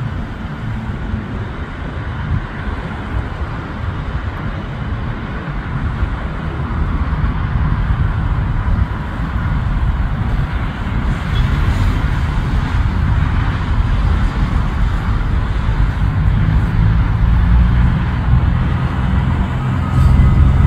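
Twin-engine jet on its takeoff roll and climb-out, a steady rumble of jet engine noise building louder as it comes nearer, with a faint whine near the end. Cars pass on the road close by.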